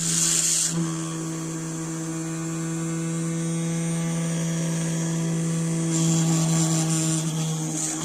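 Small electric motor of a motorized hand tool running at a steady speed, a constant hum with a high hiss that swells twice.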